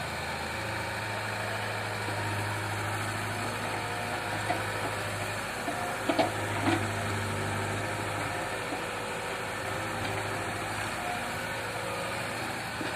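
Excavator's diesel engine running steadily, with a few sharp knocks about six to seven seconds in.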